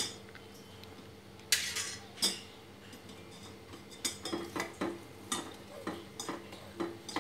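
Steel spoon stirring milk in a stainless steel pan, clinking and scraping against the pan's sides and bottom about twice a second in the second half, after a couple of sharper clinks about two seconds in. The milk is being stirred continuously as it reduces so that it does not stick to the bottom.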